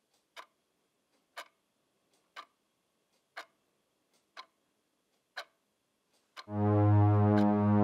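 A clock ticking once a second, seven even ticks on near silence. Near the end, music comes in with a loud held low chord.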